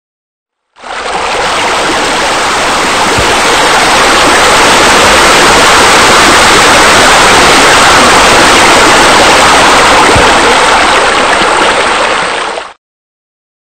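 Water splashing steadily into a pool from wall-mounted water features: a loud, even rush that starts abruptly about a second in and cuts off abruptly about a second before the end.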